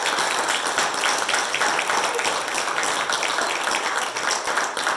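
Congregation applauding: many hands clapping together in a steady, dense patter.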